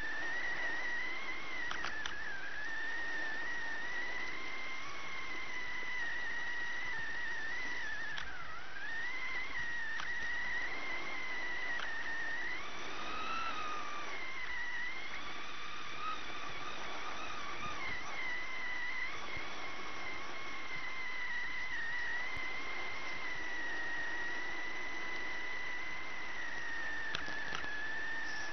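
RC truck's motor heard through its onboard FPV audio as one continuous high whine, wavering gently in pitch as the truck drives.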